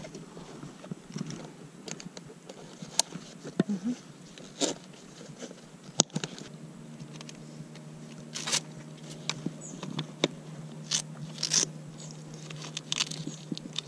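Handling noise from an Ortlieb bikepacking seat pack being strapped under a bicycle saddle: sharp plastic buckle clicks, strap and bag fabric rustling and scraping. A faint steady hum comes in about halfway.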